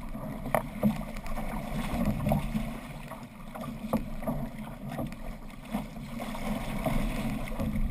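Water rushing and splashing along an outrigger canoe's hull and ama as the crew paddles, with short splashes from paddle strokes and wind buffeting the microphone.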